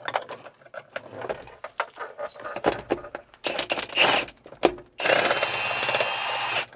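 Metal clinks and rattles of a socket and spanner on the handbrake bracket nuts. About five seconds in, a cordless impact wrench runs for under two seconds, undoing a 10 mm nut, and stops sharply.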